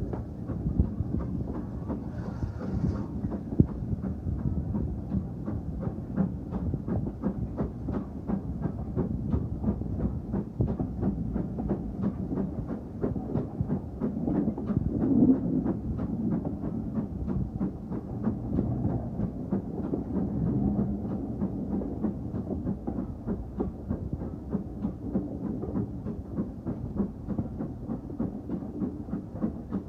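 Heritage steam train running along the line: a steady low rumble with a fast, regular clatter.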